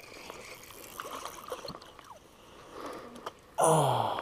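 A crappie splashing at the surface as it is swung out of the water on the line, a sudden loud splash about three and a half seconds in, with a short falling voice sound from the angler over it. Before that, only faint ticks of tackle and boat handling.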